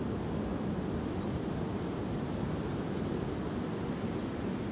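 Ocean surf breaking on a sand beach: a steady low rush of waves.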